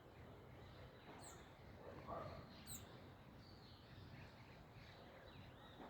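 Faint bird chirps: two short, high, downward-sweeping calls over a quiet background rumble.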